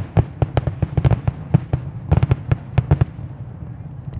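Fireworks going off: a rapid run of sharp bangs and crackles that is dense for about three seconds, then thins out.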